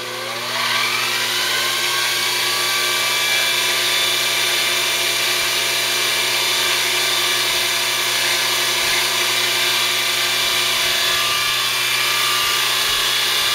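Weiss MD30LV mill-drill spindle, driven by its 1.1 kW DC motor in low range, speeding up with a rising whine over the first second, then running at a steady speed.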